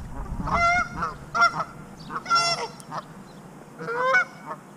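Goose honking, a run of about five loud calls.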